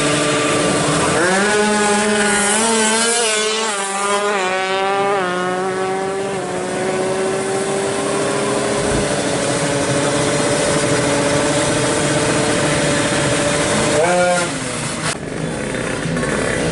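Two-stroke Kawasaki Ninja 155 drag bike engine revving hard and accelerating through several quick gear changes, the pitch climbing and dropping back at each shift. Afterwards a high engine note holds and slowly rises, with another quick rev near the end.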